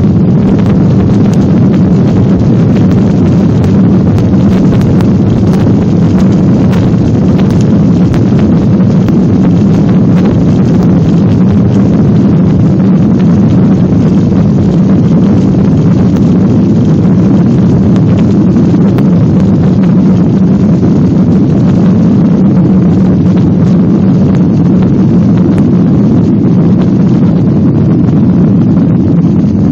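Boeing 737-900's CFM56-7B jet engines at takeoff thrust during the takeoff roll, heard from inside the passenger cabin: a loud, steady noise with a low hum.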